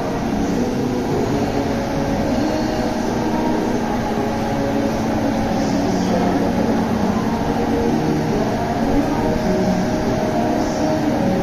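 FEMCO WBNC-100 CNC table-type boring machine running with its spindle headstock traversing up the column: a steady mechanical hum with several held tones over a rumble.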